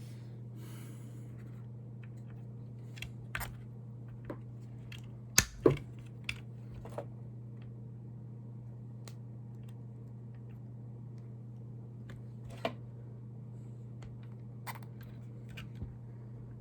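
Sparse light clicks and taps of small radio-controlled car steering parts being handled and fitted, with two louder clicks about five and a half seconds in, over a steady low hum.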